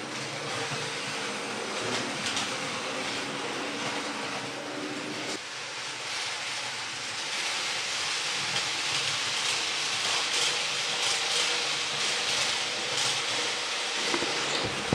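Märklin HO model trains running on three-rail metal M track: a steady rolling rattle of small wheels on the rails with a faint motor hum. The hum stops about five seconds in and the rattle grows louder and brighter in the second half.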